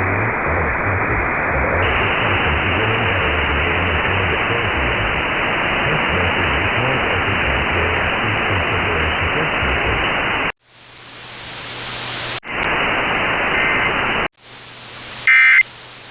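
Radio receiver static: a loud, steady hiss that cuts out suddenly after about ten seconds. It then returns in a few shorter stretches, with a low hum under the quieter ones and a short, loud beep near the end.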